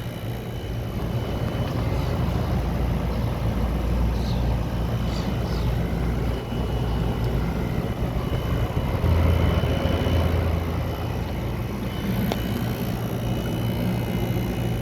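Midea 5,000 BTU window air conditioner running: a steady fan rush over the low hum of its compressor.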